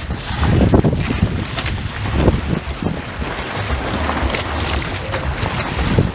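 Wind buffeting the microphone in uneven gusts over open water, with a few short knocks or splashes.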